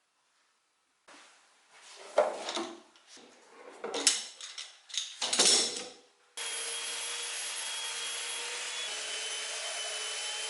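Irregular scraping and rubbing strokes on wood, several of them loud, then about six seconds in a power tool switches on abruptly and runs steadily with a faint whine.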